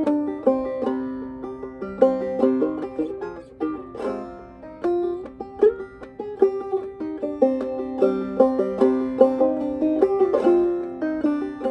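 Solo clawhammer banjo in Double C tuning playing a slow, haunting Hungarian folk melody, plucked notes ringing over one another.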